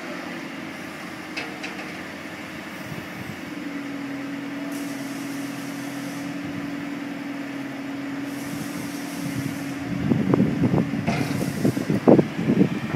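Forklift truck engine running as its hydraulics tip a carriage-mounted scoop, with a steady hum that strengthens about three seconds in and holds for several seconds. From about ten seconds in, irregular gusts of wind buffet the microphone.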